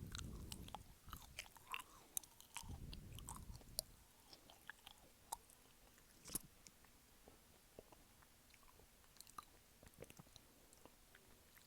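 Close-miked chewing of a soft gummy candy: wet, sticky mouth clicks and smacks. They are busiest over the first four seconds, with a few heavier low bites, then thin out to scattered clicks.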